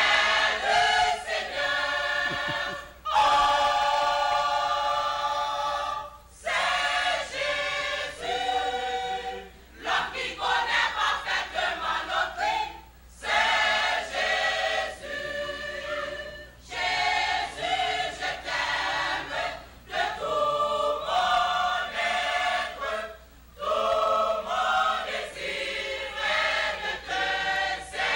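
Church choir of men and women singing together, in phrases of a second or so up to a few seconds broken by short pauses.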